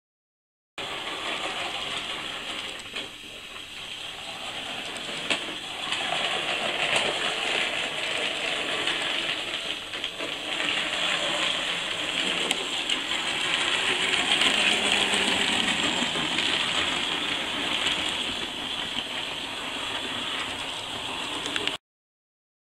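H0-scale model locomotive and train running along the layout track: a steady whirr and rumble of the small motor and wheels on the rails, with occasional sharp clicks. It gets louder toward the middle as the train comes nearer.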